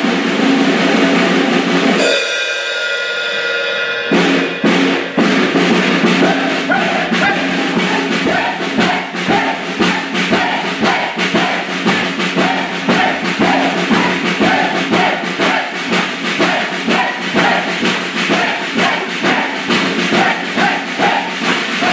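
Live music from a performance: held notes at first, then from about four seconds in a steady drum beat of roughly two strokes a second plays on under a sustained tone.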